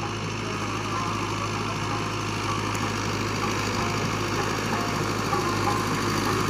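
Fiat 640 tractor's diesel engine running steadily under load as it pulls a disc harrow through sand, growing a little louder as the tractor comes closer.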